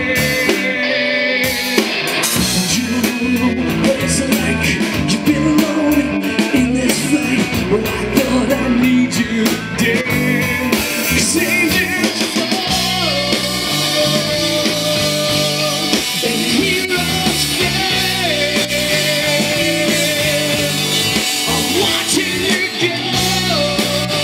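Live rock band playing loud through amplifiers and a PA: distorted electric guitars, a drum kit and a male singer. About halfway through the music moves into a new section with long held notes.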